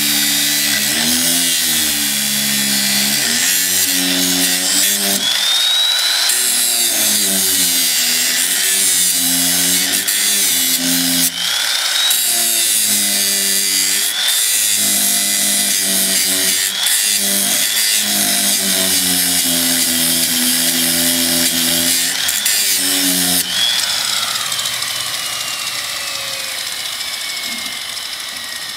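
Angle grinder grinding the tip of a small steel pry bar, its motor pitch dipping and recovering as the disc bites into the metal. About three-quarters of the way through it is switched off and winds down with a slowly falling whine.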